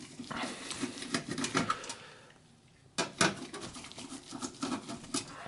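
Screwdriver backing out two screws from a computer's steel drive cage: two spells of quick scratchy clicks and rattles, the second starting about three seconds in.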